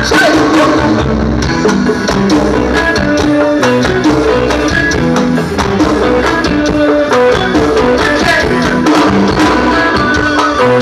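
Live band music played loud through a trio elétrico sound truck's speaker stack, held notes over a steady beat.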